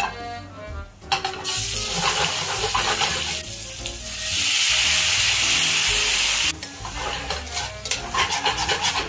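Fish and garlic frying in hot olive oil in a stainless steel pan, with a much louder hissing spell from about four seconds in as pasta water hits the hot oil, stopping abruptly about two seconds later. Tongs then click and scrape against the pan as the fish pieces are turned.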